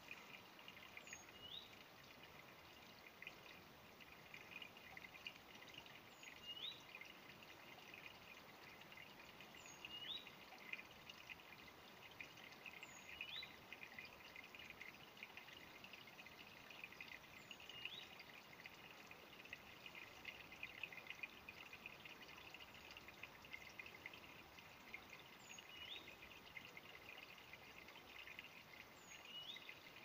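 Shallow stream trickling and babbling over its bed, heard faintly as a steady crackling rush. A bird repeats a short rising call every three to five seconds.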